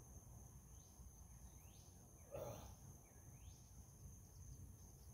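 Quiet outdoor ambience: a steady high-pitched drone of insects such as crickets, with a few faint falling bird chirps. A brief soft sound comes about two and a half seconds in.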